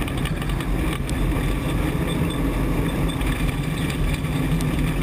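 Race truck's engine running steadily at speed on a dirt oval, heard from inside the cab.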